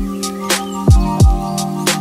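Background music: a beat of deep kick drums that drop in pitch, a few times a second, with short sharp percussion over a held chord.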